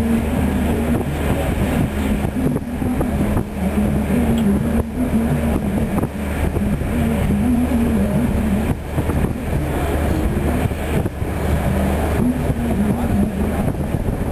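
A ship's engines droning steadily, heard from the deck, with a higher hum above the drone that wavers in pitch.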